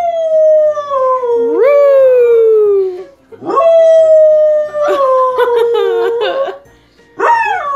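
Dog howling: two long howls that each slide slowly down in pitch, the first with a quick dip and upward swoop partway through, then a third howl starting near the end.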